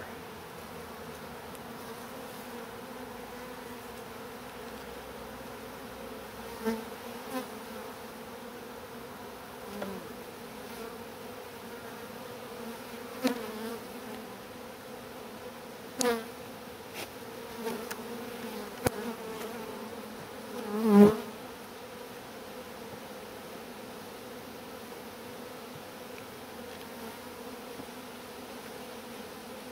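Honey bees buzzing steadily at the hive entrance, a continuous hum. A few short wooden knocks and scrapes come as a wooden entrance reducer is fitted into the hive opening, the loudest about 21 seconds in.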